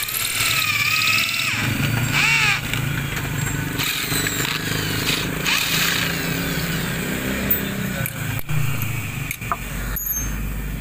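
Electric hand drill boring a 7 mm bit into a snapped exhaust stud in a motorcycle cylinder head, to drill the broken bolt out. The bit gives a wavering high squeal on the metal for the first second and a half and again briefly about two seconds in, then the drill runs on with a steady hum.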